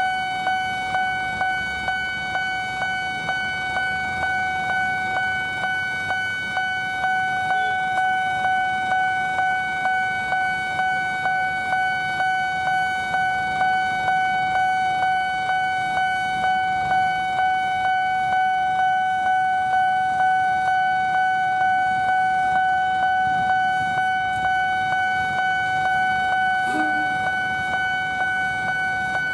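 Railway level-crossing warning alarm sounding continuously: a steady electronic tone pulsing in an even rhythm, the signal that the barriers are down and a train is approaching. A short extra sound comes near the end as the locomotive arrives.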